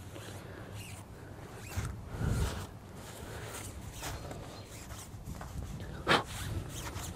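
A rag rubbing and wiping over the bare steel spindle of a semi truck's axle as it is cleaned, in short scratchy strokes. There is a dull bump about two seconds in and a sharp knock about six seconds in.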